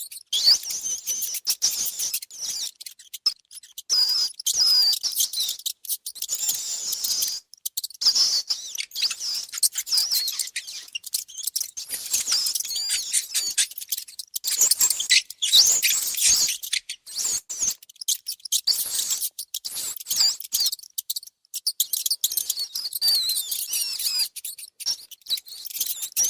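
Mice squeaking: rapid, high-pitched chirping squeaks in clusters with short pauses, mixed with quick light clicks.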